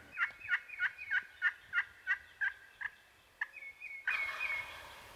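Wild turkeys calling: a run of about nine short, falling notes, about three a second, that fade away, then a few softer notes. A brief rush of noise comes about four seconds in.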